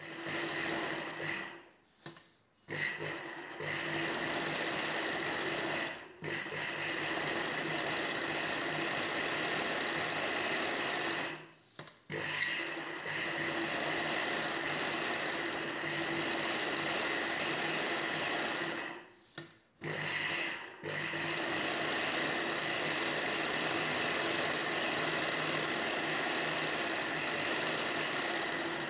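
Ralson sewing machine running steadily as it stitches the lining and blouse fabric together, in long runs broken by short stops every few seconds.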